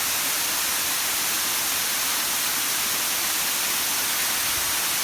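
Waterfall: a steady, unbroken rush of falling water, an even hiss.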